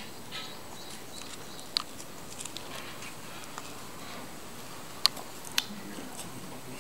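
Gloved hands threading a leather lace through the eyelets of a Sebago Docksides boat shoe: faint handling rustles and small ticks, with three sharp clicks, about two, five and five and a half seconds in.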